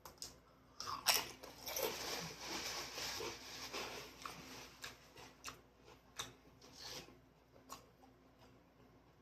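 Close-up crunching of a dipped chip being bitten and chewed: a sharp crack about a second in, a few seconds of dense crunching, then scattered single crunches.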